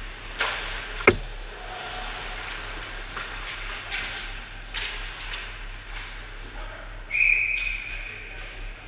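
Ice hockey play: scattered clacks of sticks and puck, with one loud bang against the boards about a second in, then a referee's whistle blown once and held for about two seconds near the end, stopping play. A steady low hum runs underneath.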